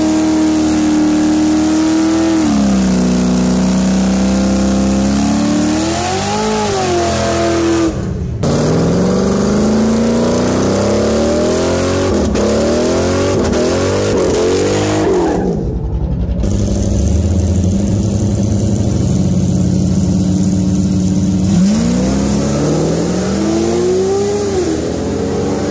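Car engines revving and accelerating, the engine pitch rising and falling. The sound changes abruptly about 8, 16 and 22 seconds in, as separate clips follow one another.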